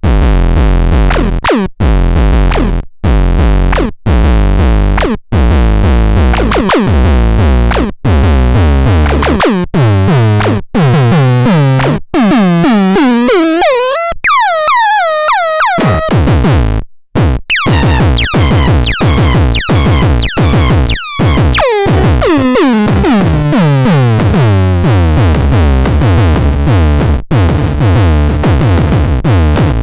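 Bumtron Mini synthesizer playing loud electronic tones that sweep up and down in pitch over a heavy bass. Its notes are cut by short gaps about once a second. About halfway through the bass drops out for a couple of seconds, leaving high chirping glides, then dense falling sweeps return.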